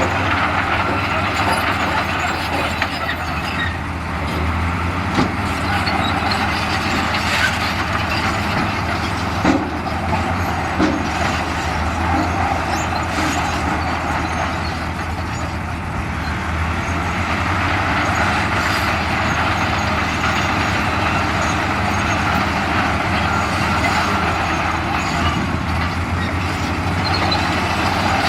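Heavy diesel earthmoving machinery running steadily under work, with a steady low engine drone and a few sharp knocks near the middle.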